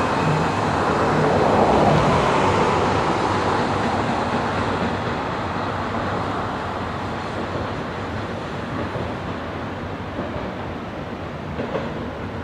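Long double-stack intermodal freight train rolling past, the steady rumble of its wheels on the rails loudest about two seconds in and then slowly fading as the train draws away.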